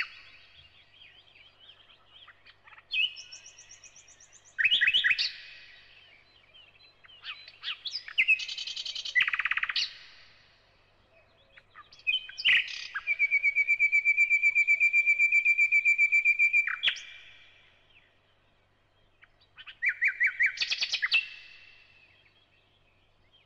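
A songbird singing in separate phrases of fast trills and rapidly repeated high notes, with pauses between them; the longest phrase is a steady rapid trill of about four seconds in the middle.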